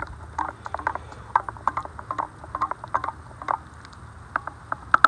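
Wooden spoon stirring in a stainless steel camping cup, scraping and clicking against the metal about three times a second. The stirring stops about three and a half seconds in, followed by a couple of single taps.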